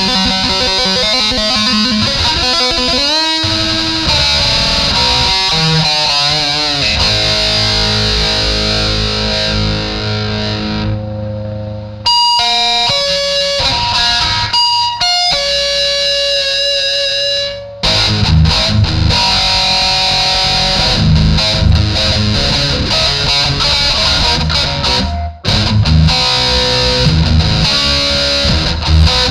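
Electric guitar playing through effects, with bent notes that glide in pitch and long held notes. The sound breaks off briefly about twelve seconds in and again near eighteen seconds.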